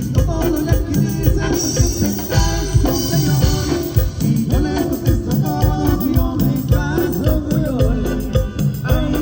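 Live band playing Latin dance music: drums keeping a steady beat under a melody line.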